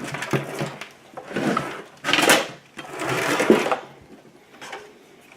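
Handling noise of hardware being moved and shifted: several rattling, scraping bursts with small clicks, loudest a little past two seconds in, then quieter near the end.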